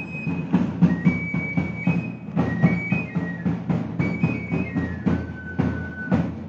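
Festival procession music on flute and drum: a high flute melody of held notes that step up and down, over a steady drum beat.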